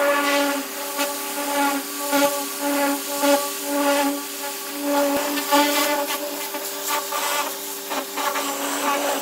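Pressure washer jet blasting chemically softened paint and rust off a car body's sheet metal: a steady spray hiss with a whistling whine that swells and fades as the wand sweeps over the panels.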